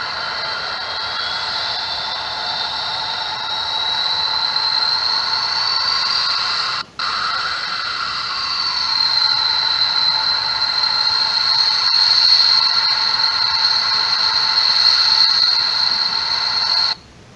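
Simulated jet-engine sound played from the small loudspeaker of a scale-model sound kit: a turbine whine over a hiss, rising in pitch, then steady and high. It cuts out suddenly about seven seconds in and again near the end, the sound module's cut-out fault.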